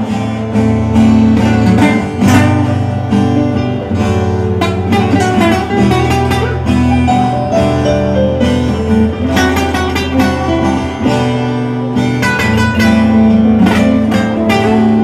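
Instrumental break in a live gaúcho folk song: acoustic guitars strummed and picked over sustained keyboard notes, with no singing.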